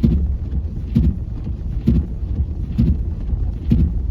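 Car interior while driving on a snowy road: a steady low rumble of engine and tyres, with a regular thump about once a second, the beat of the windshield wipers sweeping snow.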